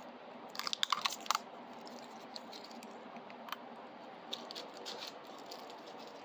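Small sharp clicks and taps from hands handling plastic parts of a 3D printer: a quick run of clicks about a second in, then faint scattered ticks.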